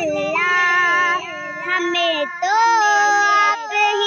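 A high voice singing an Urdu naat (devotional song to the Prophet), drawing out long, ornamented notes with short breaks between phrases.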